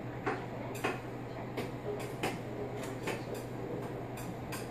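Small sharp crunches and clicks at irregular intervals, about nine in all, as a child picks at and nibbles a gingerbread house, over a steady low hum.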